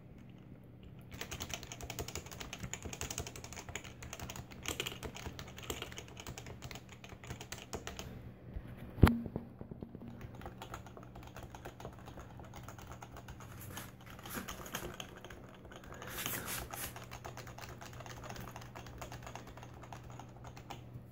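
Typing on a Happy Hacking Keyboard: a fast, steady run of key clicks starting about a second in, broken by a short pause and a single loud knock about nine seconds in. A faint steady low hum sits underneath.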